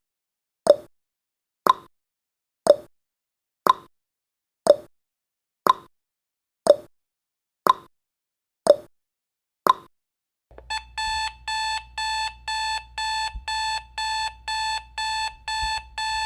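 Countdown timer sound effect: a sharp tick once a second, ten times. About ten seconds in the count reaches zero and an alarm-clock beeping starts, fast even beeps about four a second.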